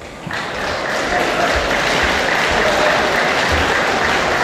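Audience applauding, starting sharply a moment in and holding steady.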